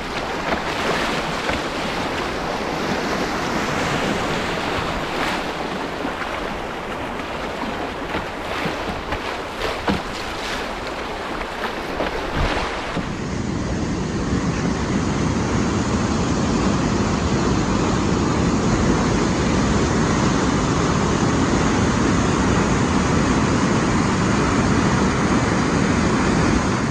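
Fast, muddy floodwater rushing and splashing around a canoe's bow. After a cut about halfway, a louder, steadier and deeper rushing of floodwater pouring over a concrete weir.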